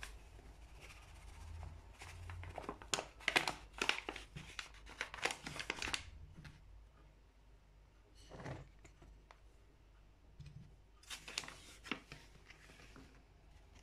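Packaging crinkling and rustling in short bursts of crackles while flour is added to a stainless steel stand-mixer bowl, with a quieter gap in the middle.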